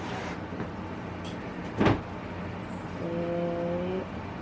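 Kitchen utensil sounds as almond flour is added to a mixing bowl: a single knock of a utensil on the bowl about two seconds in, then a steady humming tone for about a second near the end.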